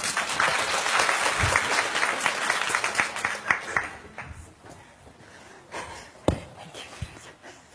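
A large audience applauding, the clapping fading after about four seconds into the murmur of voices and movement of a crowd. A single knock comes about six seconds in.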